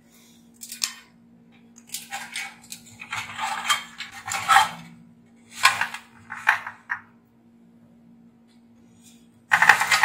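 Sheet-metal parts and wiring of an opened oil-fan heater being handled and shifted, giving several short bursts of metallic clattering and rattling, the loudest near the end, over a faint steady hum.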